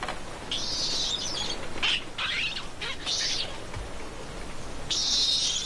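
Infant black snub-nosed monkey screaming in a weaning tantrum, its mother having refused to nurse it: a string of about five shrill squeals, the longest about half a second in and near the end.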